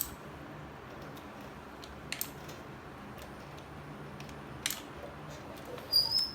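A few scattered light clicks and taps of hand tools and metal parts being handled, the loudest about six seconds in with a short high ring, over a steady low hum.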